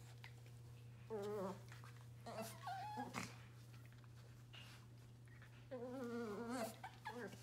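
West Highland White Terrier puppies making whiny, wavering play-growls as they wrestle. The growls come in several short bouts, and the longest, about a second long, comes near the end.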